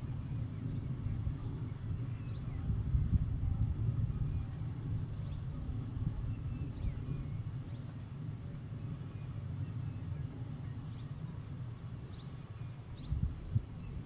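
Steady, high-pitched insect chirring over a low rumble, with a few faint short chirps in the later part.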